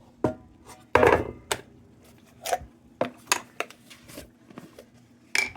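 Scattered knocks and clinks of tools and small objects being picked up and set down on a workbench, about eight irregular strikes with the loudest about a second in.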